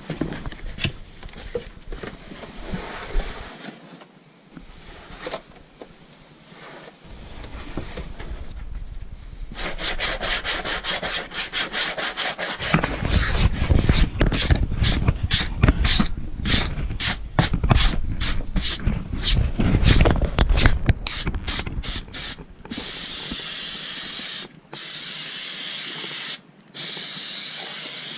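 Rubbing and then rapid, repeated scraping strokes on a headliner board, a few a second, typical of old foam and glue being scraped off. About two thirds of the way through they give way to a steady aerosol spray hiss, with two short breaks, like spray adhesive being laid on.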